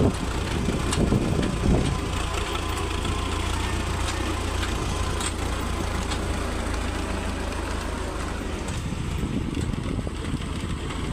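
Tractor diesel engine running steadily, with a few louder surges in the first couple of seconds.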